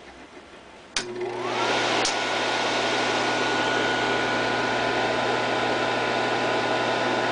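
Slide projector switched on with a click: its cooling fan motor winds up with a rising whine in about half a second, then runs with a steady whir and hum. A second click comes about a second after the first.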